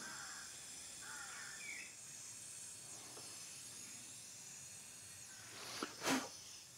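Faint steady hiss of soldering as a copper cable lug held in a vise is tinned with solder and flux, with a short, louder noise about six seconds in.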